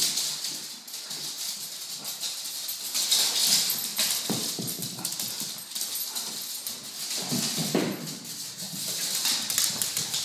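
Small dogs scampering and playing on a bare laminate floor, their claws clicking and skittering in quick, uneven runs, with louder scuffles now and then.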